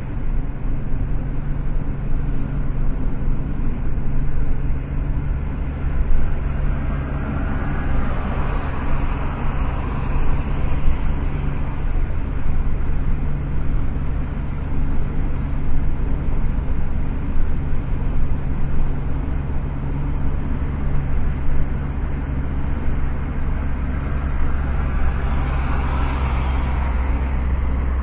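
Steady low rumble of vehicle engine and road noise, with traffic passing: another vehicle swells up and fades about a third of the way in, and another near the end.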